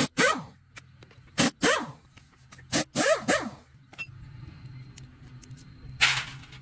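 Pneumatic impact wrench fired in short trigger bursts: three quick pairs of blips, each ending in a falling whine. A short hiss follows near the end.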